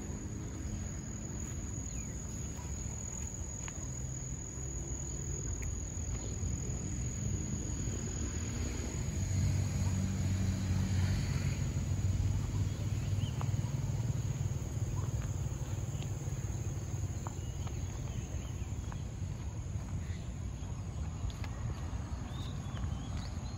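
A steady, high-pitched insect drone, with a low rumble beneath it that swells for a few seconds in the middle.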